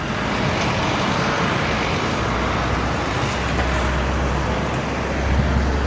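Tour bus engine running close by: a deep low rumble that sets in about two seconds in, over steady traffic noise.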